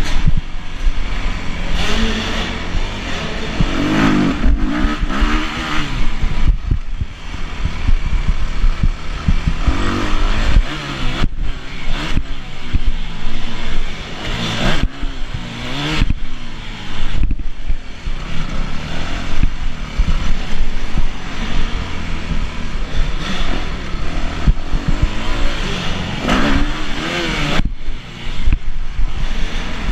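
Yamaha YZ250F four-stroke single-cylinder motocross engine being ridden hard, revving up and falling back again and again as the rider opens and closes the throttle and changes gear, with the engine briefly cutting back twice midway.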